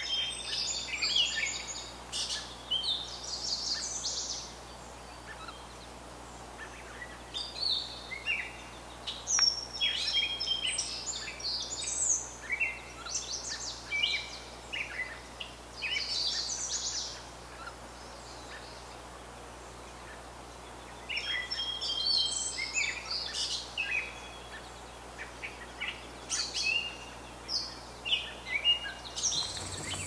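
Several small birds singing and calling: clusters of short, high chirps and trills with brief pauses between them, over a faint outdoor background.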